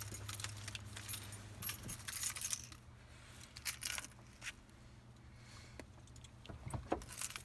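Dog's metal chain collar and hanging tag jingling in light, irregular clinks as the dog shifts and is handled, over a low steady hum.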